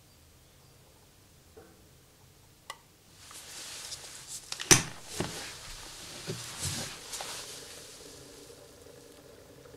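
An electric kettle heating an engine-oil sample to 100°C clicks off sharply, then hisses and crackles for a few seconds with knocks and rattles, the loudest knock just before the middle, before dying away.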